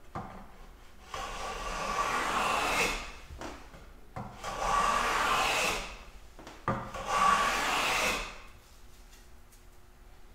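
Block plane taking a light cut along the edge of a thin board: three long strokes, each a steady swish of about one and a half to two seconds, with short pauses between them.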